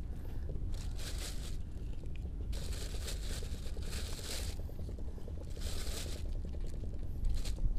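Thin plastic carrier bag crinkling and rustling in about five short bursts as fish are handled into it, over a steady low rumble.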